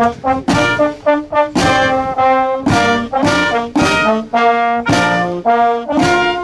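Intro music on brass instruments: a tune of separate, sharply attacked notes at about one or two a second.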